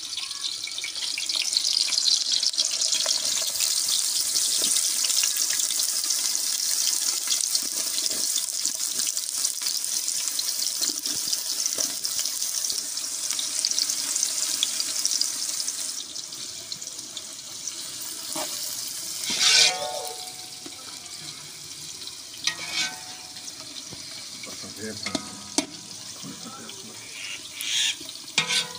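Freshly added sliced onions sizzling in hot ghee in a large cooking pot, the first stage of browning them for pulao. The sizzle is loud and steady for about sixteen seconds, then drops to a quieter sizzle.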